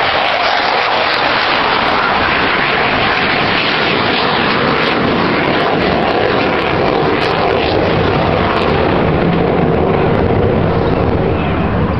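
Boeing F-15K fighter's twin jet engines giving a loud, steady roar that grows deeper in the second half.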